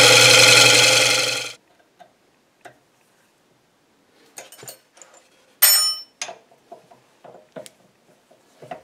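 Electric disc sander running with a steady hum, then switched off and winding down to a stop about a second and a half in. Small metal clicks and taps follow as a hex key works on a spindle, with one loud ringing metal clink in the middle.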